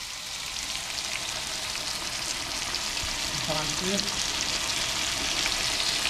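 Milk poured into a hot wok of fish curry, sizzling steadily as it hits the pan, the sizzle building a little as the pour goes on.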